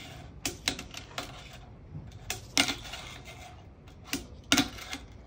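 Fingerboard on new Teak Tuning wheels being rolled and popped across a hard slab: several sharp clacks as the tail pops and the deck and wheels land, the loudest near the end, over a light rolling rumble.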